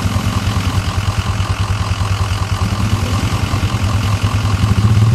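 ATV engine idling with a fast, steady low pulse. It starts to rev up right at the end as the four-wheeler pulls away.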